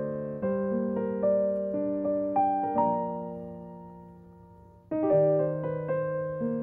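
Background piano music: notes and chords struck and left to ring out, one chord fading almost away before the playing picks up again about five seconds in.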